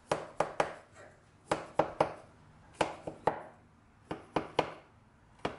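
Kitchen knife stabbing down into bread dough in a metal loaf pan to poke holes in it. The taps come in quick runs of about three, a new run starting every second and a quarter or so.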